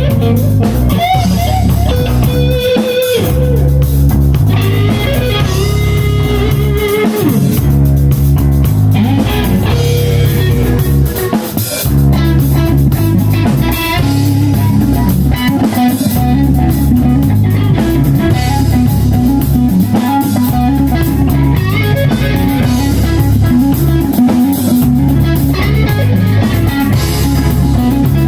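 A band playing: an electric guitar lead with bending, sliding notes over bass guitar and drum kit, with no singing.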